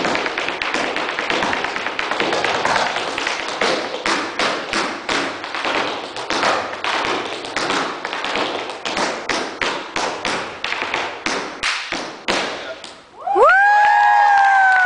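Tap shoes striking a hardwood floor in a fast, uneven improvised rhythm, dense runs of taps and heel drops. The taps stop about thirteen seconds in, and the audience breaks into loud, high whoops, the loudest sound here.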